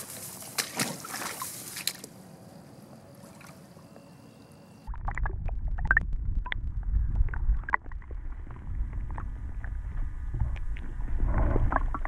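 Brief rustling and clicks of handling at the water's edge, then, about five seconds in, the camera goes under the creek's surface: a muffled low rumble of moving water with scattered knocks and clicks as a hand holds a green sunfish under the water.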